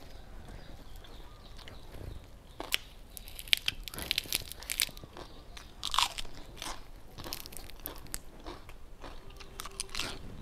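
A person biting and chewing crunchy food close to a clip-on microphone: a run of sharp crunches in the middle, the loudest about six seconds in, and a few more near the end.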